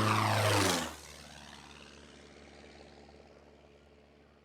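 Scottish Aviation Bulldog light aeroplane making a low pass: a loud propeller and piston engine note that slides down in pitch as it goes by. About a second in it falls away sharply, then fades out.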